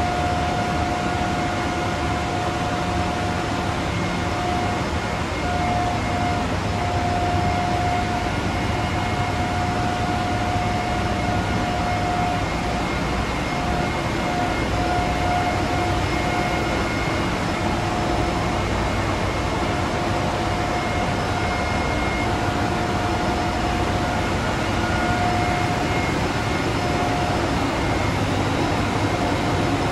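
Running machinery in a chemical tanker's engine room: a steady, loud mechanical din with a constant whine on top.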